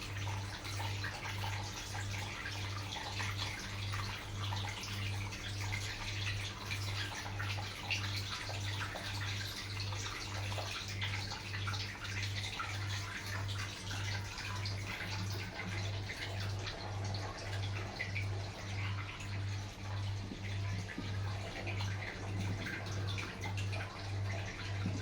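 Sharp washing machine running with water rushing and splashing inside it, over a low hum that pulses evenly a little more than once a second.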